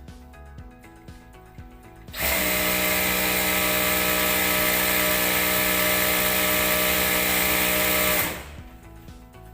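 Panda PD-W7-D1 sewing machine running at a steady high speed for about six seconds, starting about two seconds in and stopping near the end. Faint background music plays before and after.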